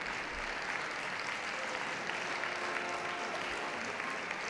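Audience clapping steadily.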